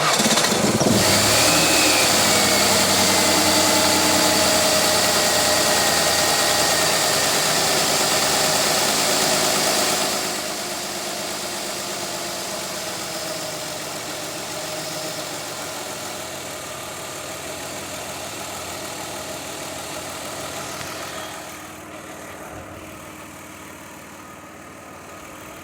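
Mazda Tribute's V6 engine starting and running, its pitch falling in the first seconds after it catches. It steps down to a quieter idle about ten seconds in and again near the end.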